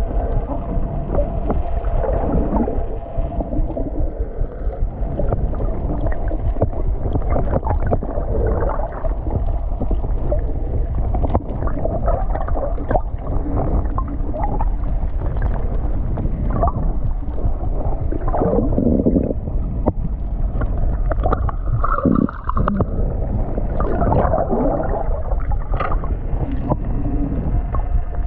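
Water heard from underwater: a steady, muffled low noise of moving sea water, with gurgles and scattered small clicks.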